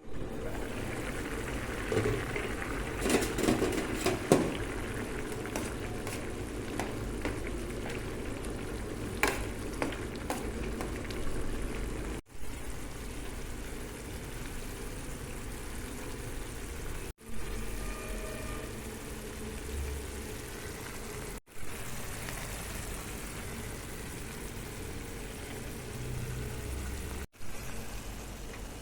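Food frying in a pan with a steady sizzle, with clinks and scrapes of stirring mostly in the first few seconds. The sound drops out abruptly four times.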